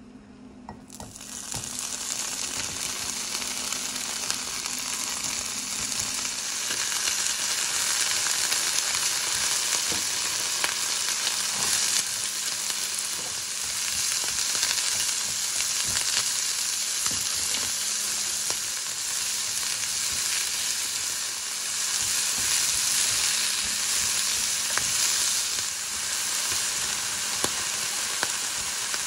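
Bacon and vegetables frying in oil in a nonstick frying pan. A steady sizzle starts about a second in, with light clicks of chopsticks stirring against the pan.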